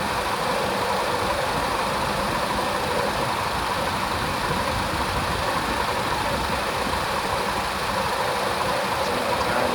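Car engine idling steadily with the air conditioning running, during a refrigerant recharge of the AC system.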